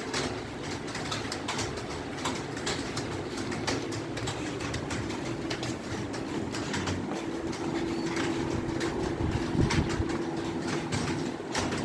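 Fast typing on an Acer computer keyboard: a quick, uneven run of key clicks, several a second, over a steady low hum.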